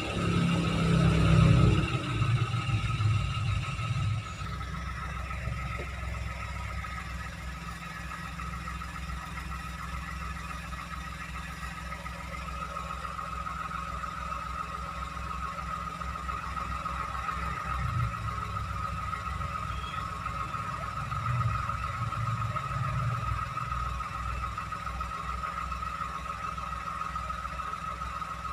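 Toyota Agya car engine, louder in a surge over the first few seconds, then running steadily with a constant whine over a low rumble.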